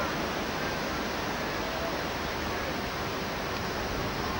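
Strong wind, around force 10, rushing steadily over the microphone.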